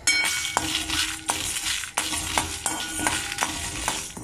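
Steel spoon stirring and scraping urad dal and dried red chillies around a dry metal pan, with regular clinks of the spoon against the pan about every half second. The dal is dry-roasting without oil until it turns golden.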